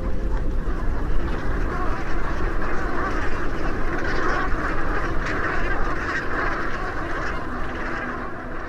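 A large flock of Pacific brant geese calling at once: a dense, continuous clamour of many overlapping calls, easing slightly toward the end.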